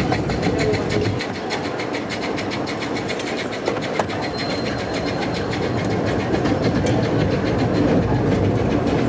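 12¼-inch gauge miniature steam railway train running steadily over the track: a continuous rumble of wheels on rails with rapid, even clicking.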